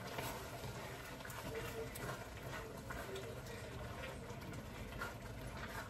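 Grated bottle gourd bubbling and sizzling in butter in a wok over full heat as its water cooks off, with soft scrapes of a spatula stirring it.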